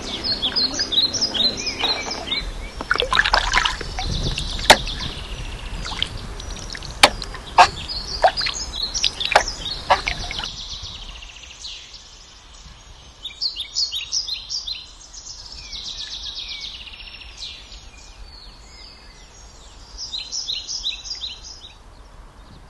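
Small songbirds singing and chirping in quick repeated notes. Several sharp knocks and some water noise come in the first half. After about ten seconds only the birdsong remains, a little quieter.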